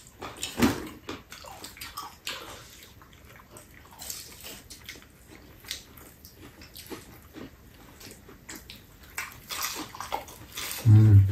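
Two people eating fried chicken with their hands: close-up chewing and lip-smacking, an irregular run of small wet clicks.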